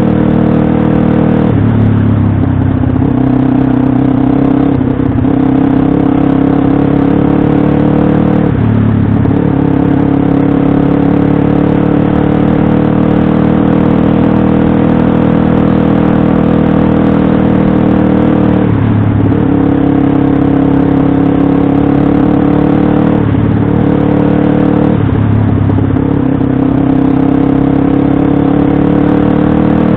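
Pit bike engine running hard under throttle at a fairly steady pitch. The revs dip briefly and climb back about six times.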